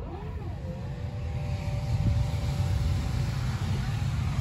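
Power liftgate of a car whirring open: an electric motor hum that wavers at the start, holds steady for about three seconds and stops near the end, over a steady low rumble.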